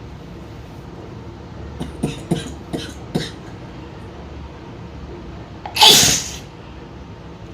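A woman sneezes once, loudly, about six seconds in. It is preceded, between about two and three seconds in, by four short, sharp breathy sounds as the sneeze builds.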